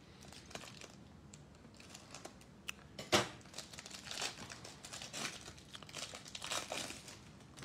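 Clear plastic wrapper on a Panini Select basketball card pack crinkling and tearing as it is worked open by hand, in irregular crackles with a sharper, louder rip about three seconds in.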